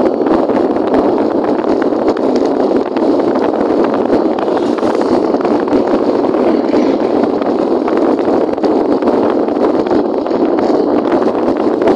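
Steady rush of wind and road noise on a moving motorcycle, buffeting the microphone with no break.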